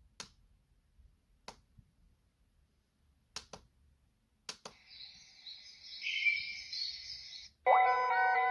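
JALL K8 sunrise alarm clock: a handful of sharp plastic button clicks, then a faint high chirping sound from its speaker, then a loud electronic alarm ring of several steady tones starting near the end.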